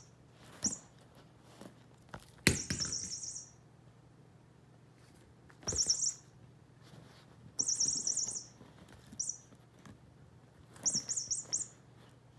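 Puppy pawing and batting a plastic lattice toy ball, which jingles in short high-pitched bursts, about six times, each with a soft knock at its start.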